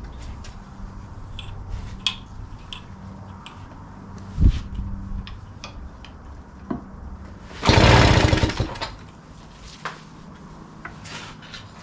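A 1963 British Seagull outboard being pull-started with its starter cord, the first pull with a new ignition coil: small handling clicks, a knock about four seconds in, then a loud burst of about a second as the cord is pulled and the engine turns over without catching.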